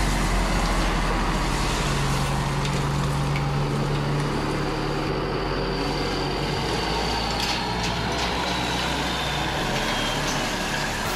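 Steady diesel-engine rumble from a radio-controlled toy excavator's engine sound effect as the excavator drives and swings. A faint high whine slides down in pitch over several seconds midway.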